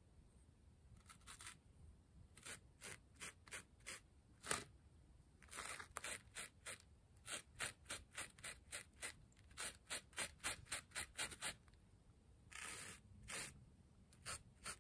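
Faint paintbrush strokes scraping over foam board: a run of short scratchy swipes, two or three a second, with short pauses between runs.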